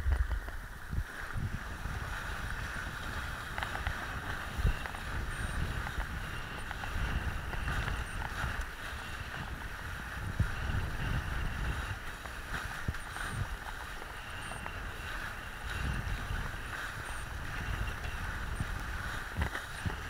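Wind buffeting a kitesurfer's head-mounted camera microphone in uneven gusts over the rush of a kiteboard skimming across choppy water, with a few sharp knocks as the board hits the chop.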